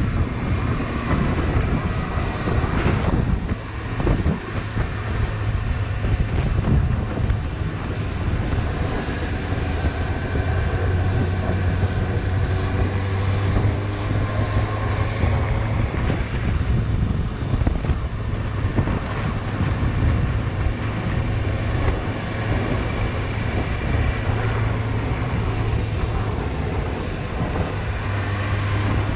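Suzuki GSX-S750's inline-four engine running steadily at low speed, heard from a helmet chin-mounted camera, with wind buffeting the microphone. The engine eases off briefly about four seconds in.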